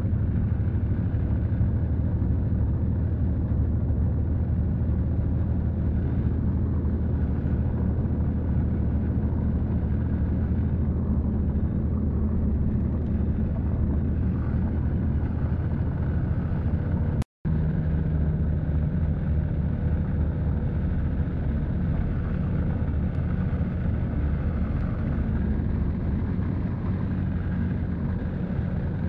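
Steady low rumble of a vehicle's engine and road noise, heard from on board while it drives. The sound cuts out for an instant a little past the middle.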